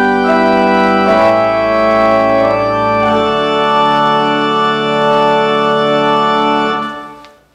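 Church organ playing slow, sustained chords. The final chord is released about seven seconds in and dies away.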